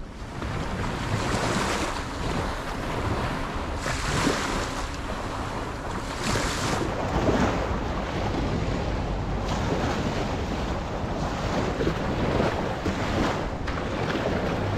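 Small waves washing up and breaking on a sandy shore in surges every second or two, with wind buffeting the microphone.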